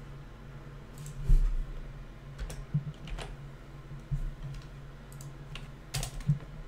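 Irregular clicks and taps of a computer keyboard and mouse, about half a dozen spread out, the loudest with a low bump about a second in, over a faint steady low hum.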